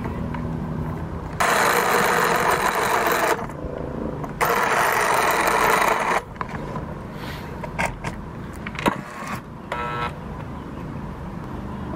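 Corded electric jigsaw sawing through a pine board in two runs of about two seconds each, the first starting about a second and a half in and the second stopping about six seconds in.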